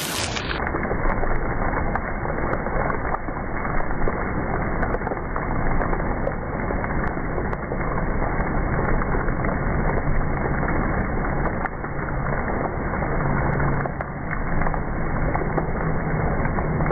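Heavy rain pouring down and splashing into a flooded street, a dense steady patter with many sharp ticks of drops or hailstones striking throughout.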